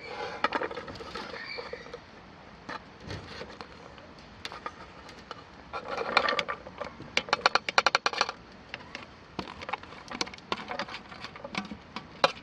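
Cooking sounds: scattered clicks and taps of utensils, with a quick run of rapid taps about seven seconds in and short stretches of hiss about a second in and about six seconds in.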